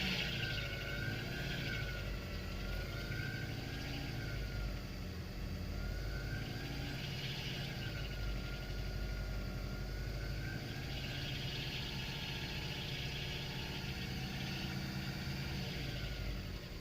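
DW Hower H5 2.0 turbo engine running steadily, with a high whine that wavers slowly up and down in pitch over the engine note: the extraneous engine noise the owner is pointing out.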